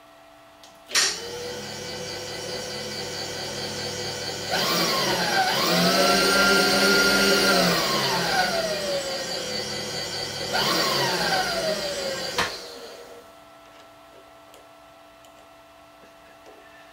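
Milling machine spindle motor switched on with a click about a second in, running while a drill bit cuts into a steel boring-bar sleeve, with whines that rise and fall in pitch during the cut. It shuts off about three-quarters of the way through.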